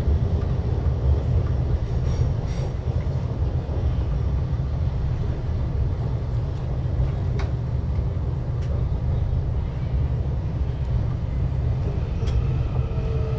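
Electric commuter train running, heard from inside the passenger car: a steady low rumble with a few sharp clicks. A falling whine begins at the very end.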